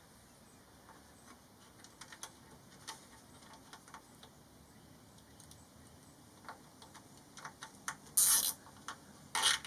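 Faint scattered clicks and small handling noises of wiring and plastic, then two short, loud scratchy rasps near the end.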